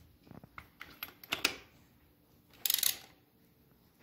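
Socket ratchet clicking as it is worked back and forth on the centrifugal oil filter nut of a Hawk DLX 250 engine. A few light metal clicks come first, then a quick run of ratchet clicks near the end. The nut is turning the engine over with it, so it will not tighten.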